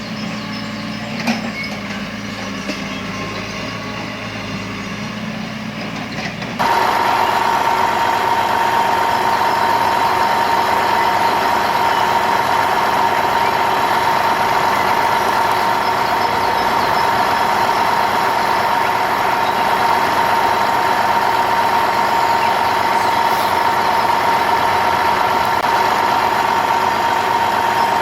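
A steady motor or engine sound running without a break. About six and a half seconds in it jumps abruptly to a louder, steady run with a high whine.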